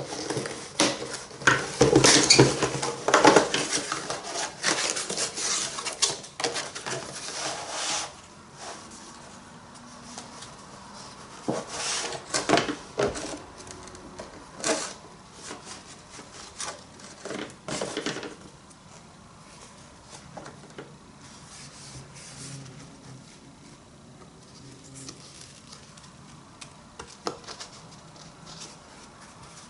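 Objects and packaging being handled: rubbing, rustling and small clattering knocks, busy for the first several seconds, then a few scattered knocks and quieter handling.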